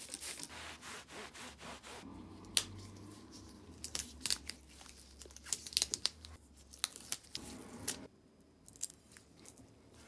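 Yellow adhesive tape being pulled off the roll, torn and pressed onto the jaws of a bench vise: a dense rasping stretch at first, then scattered crackles and ticks of crinkling tape, quieter near the end.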